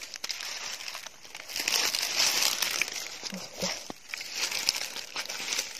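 Dry fallen leaves rustling and crackling as the leaf litter is disturbed, loudest in two stretches, about a second and a half in and again near the end.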